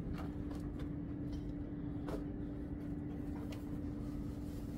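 A steady low mechanical hum with one constant tone, and a few faint light clicks.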